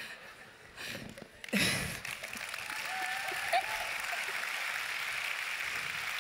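Audience applauding, which swells about two seconds in and then holds steady.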